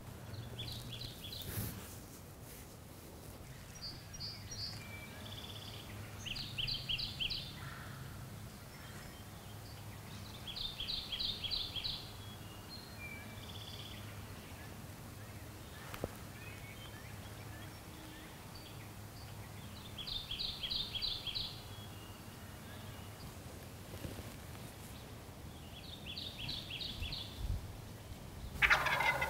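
Wild turkey gobbling: short rattling bursts, each a rapid run of pulses, repeat every few seconds, with a louder, fuller burst near the end.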